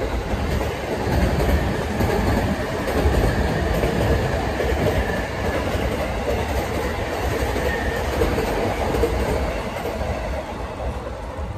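Loud, steady rumble of a passing vehicle, easing off near the end.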